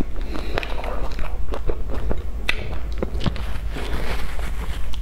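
Close-miked eating sounds: a person chewing and biting soft cream-filled pastry buns with a crumbly crust, giving irregular wet mouth clicks and small crackles. A steady low hum runs underneath.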